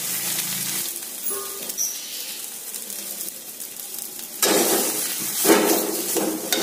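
Potatoes and spices frying in oil in a small aluminium kadai, sizzling steadily. A little over four seconds in, a spatula starts stirring and scraping through them, which is louder.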